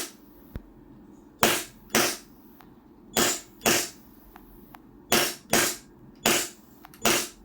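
WE Glock 17 Gen 5 gas blowback airsoft pistol firing eight sharp shots, mostly in pairs about half a second apart, the slide cycling with each shot.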